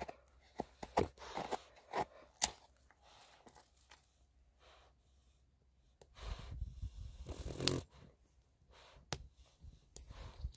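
Dry sticks being handled and laid onto a small campfire: scattered sharp clicks and snaps of wood, with a stretch of rustling and scraping about six seconds in.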